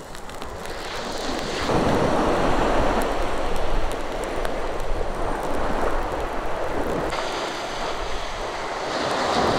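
Seawater washing and splashing, with wind buffeting the microphone; it grows louder about two seconds in and eases near the end.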